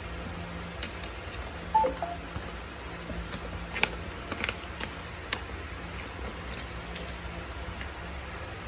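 Paper pages of an instruction booklet being handled and flipped, with light rustles and small clicks, over a steady low hum. About two seconds in there is a short two-note blip, the loudest sound.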